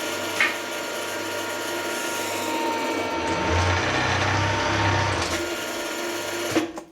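A milling machine's motor and spindle running steadily with a fixed whine and a low hum. The low hum grows heavier for a couple of seconds in the middle, and the machine is switched off near the end.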